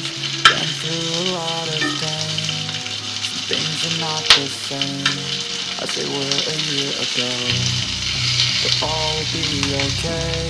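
Red chillies, bird's-eye chillies and garlic cloves frying in oil in a pan, a steady sizzle, with a metal spoon stirring and clinking sharply against the pan about half a second in and again about four seconds in. Soft background music with a melody runs underneath.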